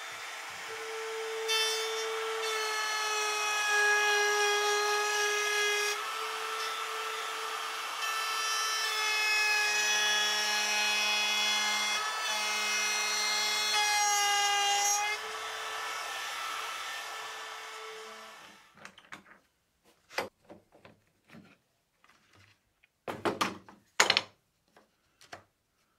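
Makita cordless trim router running as it routes a dado across half-inch plywood, a steady whine that shifts in pitch as the bit cuts, then winds down after about fifteen seconds and stops. A few light knocks and clicks follow near the end.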